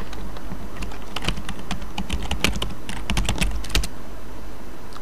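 Typing on a computer keyboard: a quick, irregular run of key clicks, the last keystroke, the Return key, a little before four seconds in.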